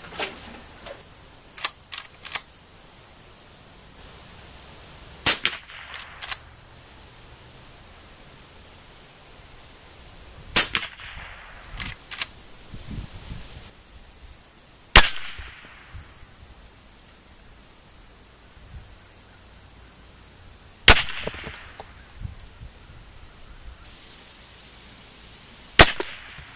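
Five .22 LR rifle shots from a Winchester 94/22, fired one at a time about five seconds apart, each a sharp crack. Lighter clicks come between some of the shots, over a steady high drone of insects.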